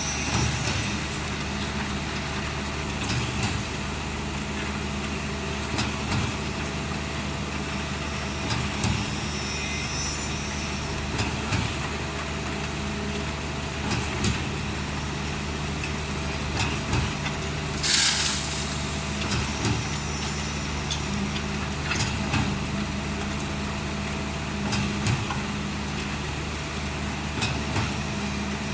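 Truck-mounted concrete mixer pump machine running steadily with a low engine hum, a knock coming about every three seconds. A sharp hiss of escaping air about eighteen seconds in.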